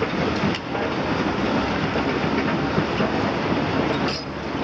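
Cat 352F XE crawler excavator travelling on its steel tracks: the Cat C13 ACERT diesel engine running while the track chains clatter steadily over the rubble.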